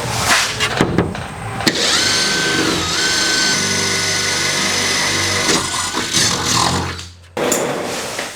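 Power tool running steadily for about five seconds as it cuts. Its pitch dips briefly and then holds. Shorter bursts of tool noise come before and after it.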